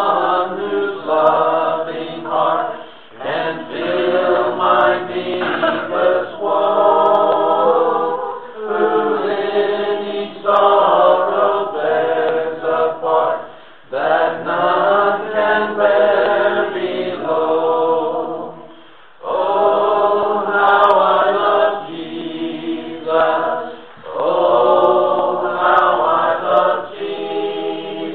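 Unaccompanied voices singing a hymn in phrases of about five seconds, with a short pause for breath between each phrase.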